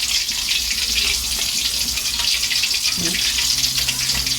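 Floured chicken pieces deep-frying in hot oil: a steady, dense sizzle.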